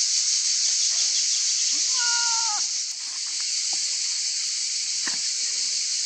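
A newborn goat kid bleats once, a short high cry about two seconds in that drops in pitch at the end, over a steady high hiss of cicadas.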